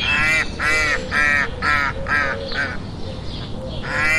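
White domestic ducks quacking in a quick series of short, nasal calls, about three a second. The calls pause for about a second, then start again near the end.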